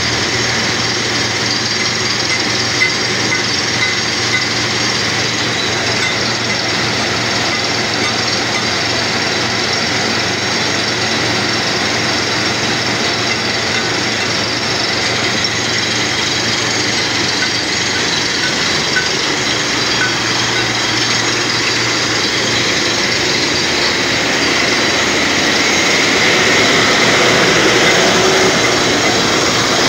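Compressor-powered borehole drilling rig running: a steady, loud machine noise with a hiss. The low hum underneath drops away about two-thirds of the way through.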